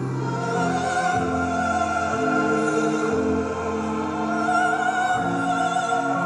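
Slow classical music: a high singing voice holds long, wavering notes over sustained orchestral chords.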